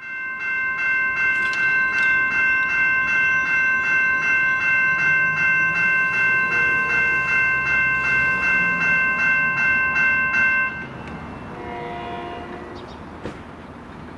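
Grade-crossing warning bell ringing in quick, even strokes, two or three a second, until it stops about eleven seconds in. An approaching Kawasaki M9 train then gives a short, distant blast on its two-note Nathan K2H airchime horn.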